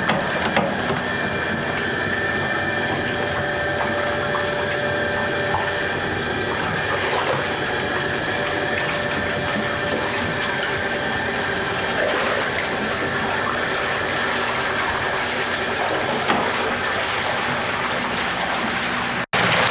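Water rushing steadily out of a fish-stocking truck's tank through the hose and slide, with a faint steady mechanical hum running under it.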